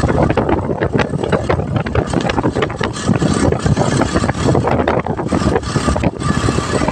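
Motorcycle engine of a tricycle (a motorcycle with a sidecar) running steadily on the move, heard from inside the sidecar.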